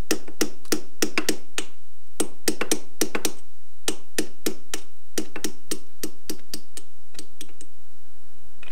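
Hammer tapping a steel pin punch to drive a tapered lock pin out of the bell crank pivot boss on a 1943 Willys MB front axle: steady sharp metallic taps, about three a second with a short ring after each, with a brief pause about two seconds in, stopping shortly before the end. The pin is starting to come free.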